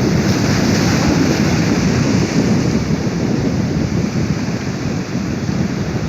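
Sea surf washing steadily ashore, a continuous rushing wash with wind buffeting the microphone.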